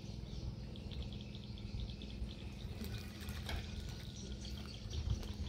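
River ambience by a floating fishing platform: water lapping under a steady low hum, with small bird chirps scattered throughout and a few faint clicks about three and a half seconds in.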